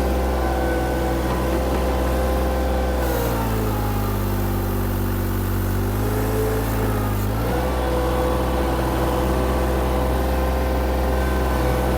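VMENG 580T Pro mini skid steer engine running at full throttle. About three seconds in its speed drops and stays low for about four seconds, then climbs back. The engine is bogging down as the 16 GPM hydraulic pump loads it while the boom is raised.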